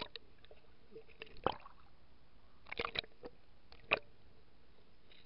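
Water sloshing and gurgling around a camera dipped under the lake surface, with a few sharp pops: one about a second and a half in, a small cluster near three seconds and one near four seconds.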